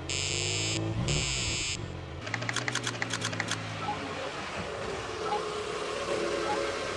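A car engine running, with two short electronic buzzes in the first two seconds, then a quick run of phone keypad taps about two to three and a half seconds in.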